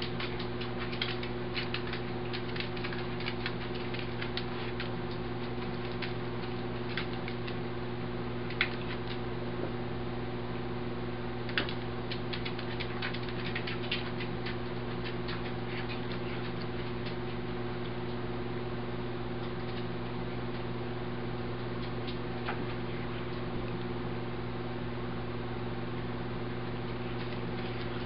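A cat chewing and tearing at grass blades held up to it, heard as many small irregular clicks and crunches that thin out about halfway through. Under it runs a steady mechanical hum.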